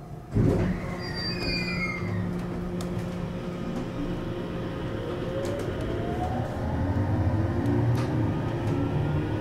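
521-series electric multiple unit pulling away from a station: a sudden loud burst about half a second in, then the inverter-driven traction motors whining in several tones that climb steadily in pitch as the train accelerates.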